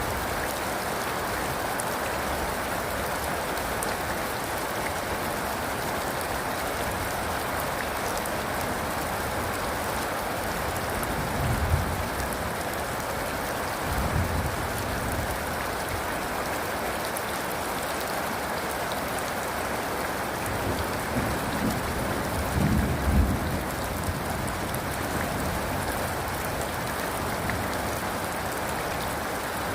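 Steady rain pouring down, with a few short low rumbles of distant thunder in the middle.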